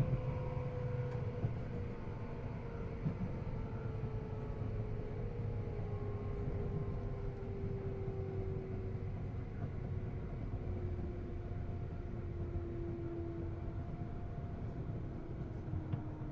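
Running sound inside a JR East 211 series 3000 subseries electric train: a steady low rumble from the wheels and track, with a whine that falls slowly in pitch as the train slows.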